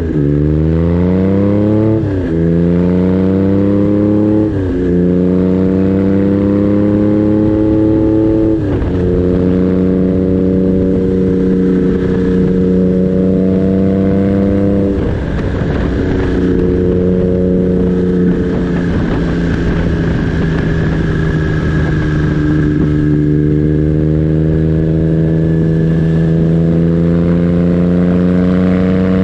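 Triumph Trident T150V's three-cylinder engine, breathing through a 3-into-1 exhaust, pulling up through the gears: the note climbs, drops sharply at each shift four times in the first few seconds, then settles into a steady cruise with an easing off and a gradual pick-up near the end.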